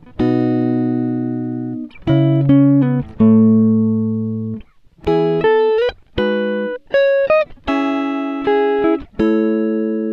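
Background music: a guitar playing a slow melody of single ringing notes and chords, each left to fade, with a few notes sliding up in pitch.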